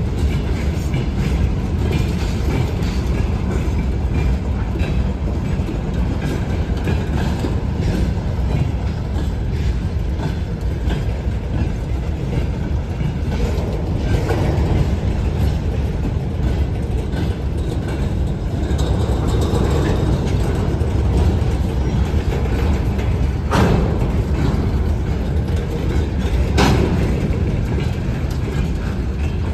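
ChME3T shunting diesel locomotive running during shunting moves, a steady low engine sound with two sharp knocks near the end.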